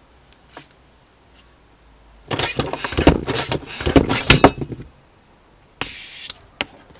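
Hands working on a scooter inner tube at a table: about two seconds of dense rubbing and clattering, then a short hiss and a single click near the end.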